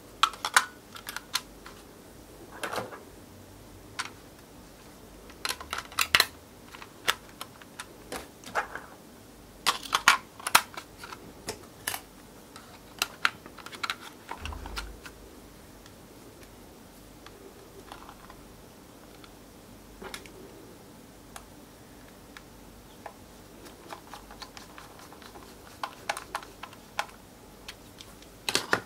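Scattered sharp plastic clicks and taps, some in quick clusters, from handling a toy drone's plastic remote control and fitting its battery cover into place.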